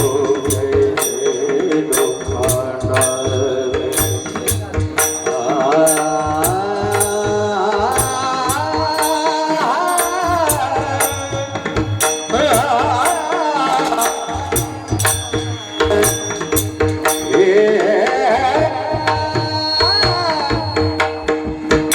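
Marathi kirtan music: male singing of a devotional tune over a steady held drone-like accompaniment, with a tabla-type hand drum and evenly spaced metallic strokes keeping a steady beat.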